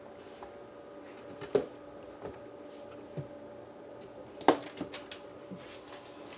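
Quiet kitchen background: a steady faint hum with a few light knocks and clicks, the loudest about a second and a half in and another about four and a half seconds in.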